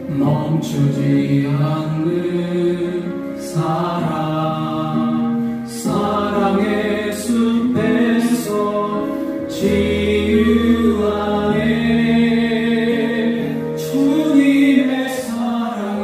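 Korean contemporary worship song: a sung melody of long held notes over an instrumental backing with a bass line.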